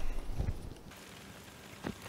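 Soft handling knocks, then a short sharp click near the end, as a small cooling fan is screwed onto a plastic 3D-printer extruder body with a hex screwdriver.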